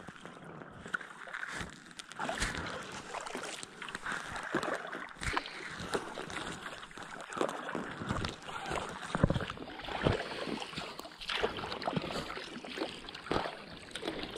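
Double-bladed kayak paddle dipping into calm lake water on alternating sides, with a splash and trickle of water off the blades at each stroke in a steady rhythm of roughly one stroke every second or two.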